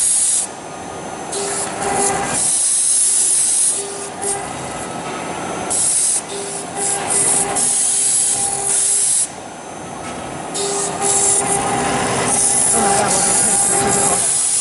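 AKM1325 CNC router cutting acrylic sheet: a loud high hiss from the bit cutting, which falls away and comes back several times, over a steady whine from the spindle.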